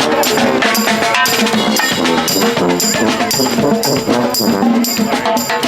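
Music with brass instruments over a steady beat, cymbal strokes marking the rhythm.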